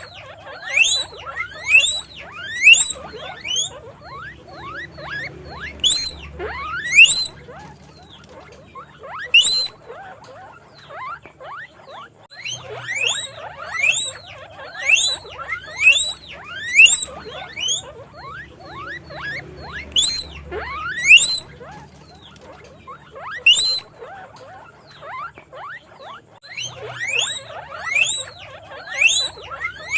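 Guinea pig squeaking: short, high-pitched rising squeaks repeated in bouts of several, with pauses of a few seconds between bouts.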